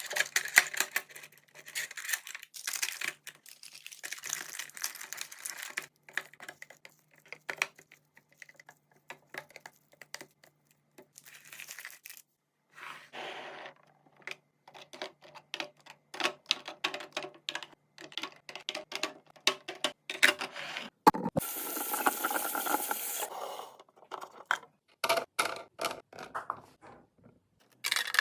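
Packaging and containers being handled while restocking a fridge: many small clicks, taps and scrapes of plastic and glass, with stretches of crinkling wrappers. About three-quarters of the way through comes a dense rushing hiss lasting about two seconds.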